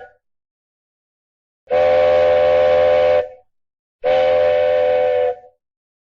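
Train whistle sounding two long blasts, each about a second and a half, the second beginning about four seconds in. Each blast is a steady chord of several notes that holds its pitch and stops cleanly.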